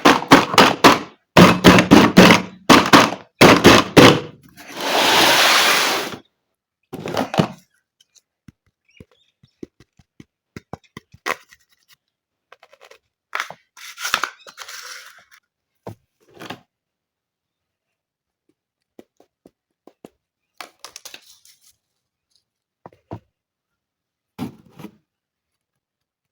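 Plastic toy pieces and packaging being handled in an unboxing. There is a run of loud, sharp thunks and knocks, then a noisy rasp lasting about a second and a half. After that come scattered light clicks and rustles.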